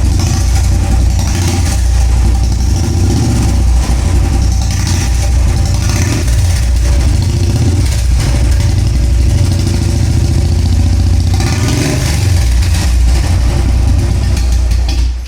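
Royal Enfield single-cylinder engine running through an aftermarket Long Punjab silencer, very loud, swelling several times as the throttle is opened. It shuts off just before the end.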